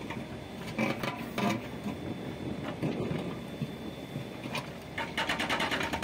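Backhoe loader diesel engines running, with a few knocks about a second in and a burst of rapid, even rattling near the end.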